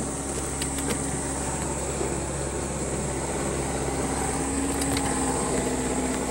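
Boat motor running steadily at low speed, a constant hum, with a few faint clicks about a second in and again near five seconds.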